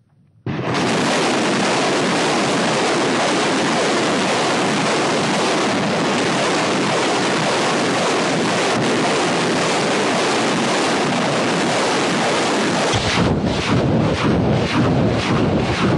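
Truck-mounted multiple rocket launchers firing salvos: a steady, dense roar of rocket motors that starts suddenly about half a second in. Near the end it turns uneven, with rapid pulses and a deeper rumble.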